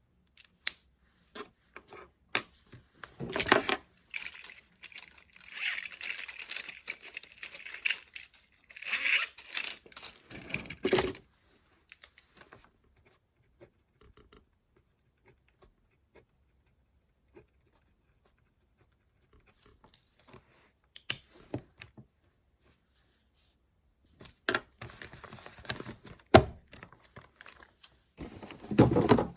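Small objects being handled at close range: rustling, scraping and sharp clicks in two busy stretches, with a long quiet gap between them.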